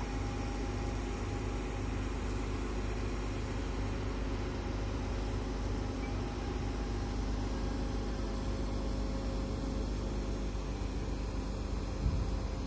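Tadano ATF 400G-6 all-terrain crane's engine running steadily under a hoisting load, a constant hum with a low rumble, and a brief thump near the end.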